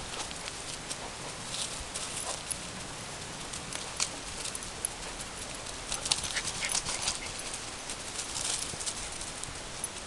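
Dogs' paws scuffling and crunching on dry grass and fallen leaves as two dogs chase and wrestle in play. The quick crackles are busiest about two seconds in and again around six to seven seconds, over a steady hiss.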